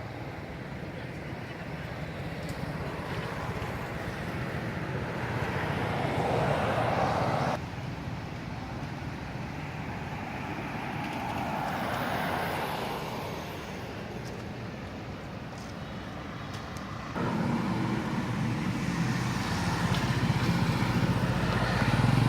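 Road traffic going past: vehicles swell and fade in turn as a steady rush of noise, and the sound changes abruptly twice.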